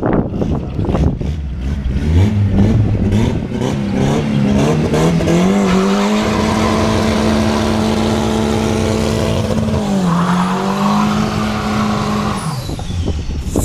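Turbocharged Chevrolet Celta doing a burnout: the engine revs climb over a few seconds and are held high and steady with the tyres spinning. The revs dip once, climb again, then drop off about a second before the end.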